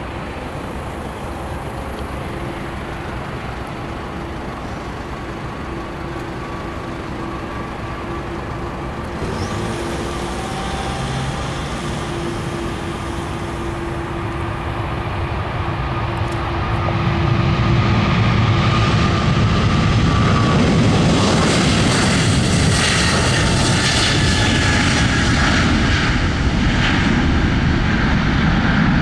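A Boeing 777-200ER's two jet engines at takeoff power during the takeoff roll, a steady hum that grows into a louder, fuller rumble about two-thirds of the way in as the airliner passes. A faint whine falls in pitch as it goes by and lifts off.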